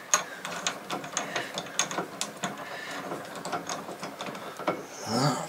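Drill press chuck being turned by hand to clamp a 4 mm drill bit: a run of small, irregular metallic clicks and rattles.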